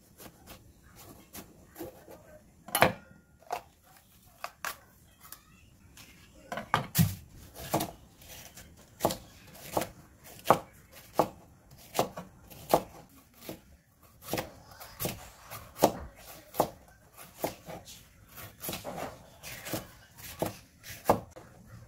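Chef's knife slicing a red bell pepper into strips on a wooden cutting board: irregular knocks of the blade striking the board, sparse at first and coming more often from about a quarter of the way in.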